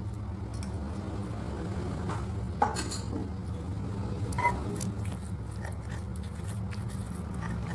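Stone pestle crushing fresh chillies, tomatoes and shallots in a stone mortar (ulekan and cobek) to make sambal, with soft crunching and squishing strokes in the second half. A metal spoon clinks sharply against the stone twice before the grinding starts, over a steady low hum.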